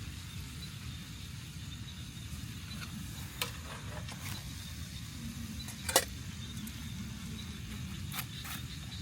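A handful of sharp clicks and knocks over a steady low rumble, the loudest knock about two-thirds of the way in.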